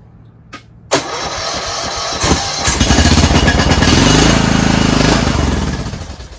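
Riding lawn tractor engine started with the key: a click, then the electric starter cranks for about a second and a half before the engine catches and runs loudly for a few seconds, then winds down and stops. The fuel is shut off, so it is burning the last gas in the carburetor bowl for winter storage.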